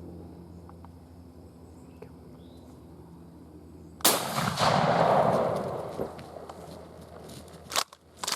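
A single shotgun blast about four seconds in, its echo rolling away over the field for a couple of seconds, followed by two short sharp clicks near the end.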